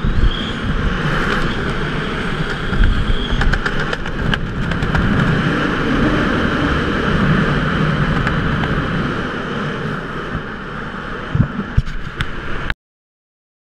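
Wind buffeting a helmet camera's microphone during a descent under an open parachute canopy: a steady rushing rumble with scattered clicks. It cuts off suddenly near the end.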